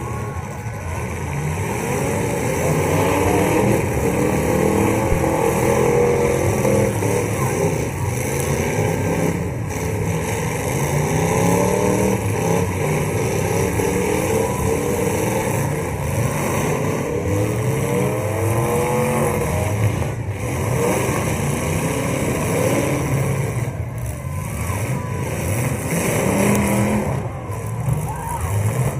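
Several full-size demolition derby cars' engines running and revving hard at once, pitches rising and falling as they accelerate and back up, with a few short thuds from cars hitting.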